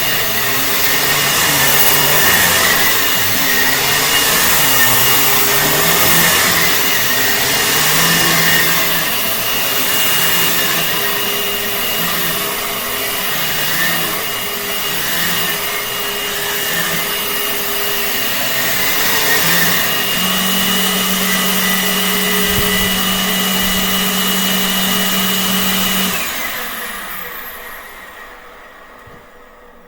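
A 2011 Dirt Devil Classic vacuum cleaner running, its motor pitch wavering as it is worked. It then holds a steady whine, and about 26 seconds in it is switched off and winds down, the whine falling away over the last few seconds.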